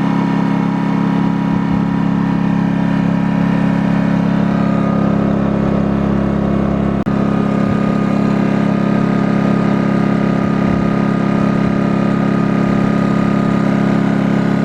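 Pulsar 2300 (G2319N) inverter generator running steadily at high speed with no load and eco mode off, a loud, even engine drone heard close up, with one momentary drop in level about halfway through.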